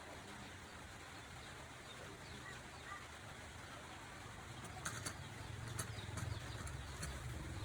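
Faint bird calls over a steady low hum, with a few sharp clicks about five seconds in.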